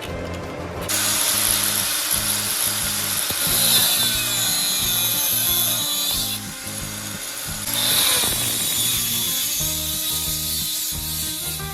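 Angle grinder cut-off wheel cutting steel: a loud high-pitched grinding hiss starting about a second in, dropping away briefly near the middle, then cutting again. Background music runs underneath.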